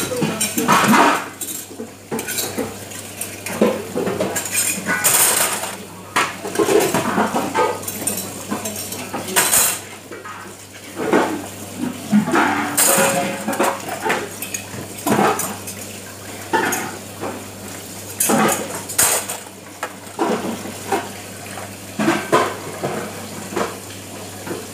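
Metal cutlery, trays and dishes clattering and clinking as they are handled and washed, in irregular bursts of knocks and rattles.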